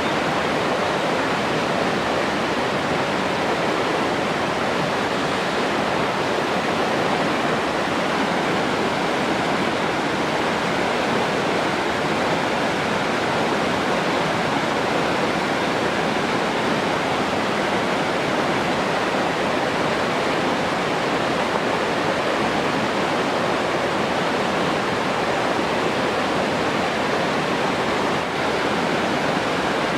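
Steady rushing of running water, like a waterfall or fast stream, an even unbroken wash of sound with no changes.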